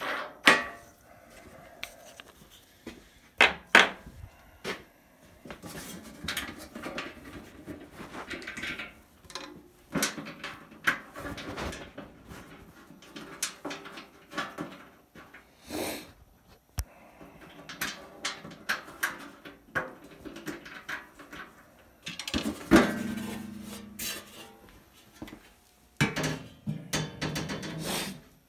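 Parts of a Harbor Freight 14-inch bandsaw clicking, clanking and rattling as it is taken apart by hand, in irregular knocks and scrapes. About two-thirds of the way through comes a louder clank that rings briefly.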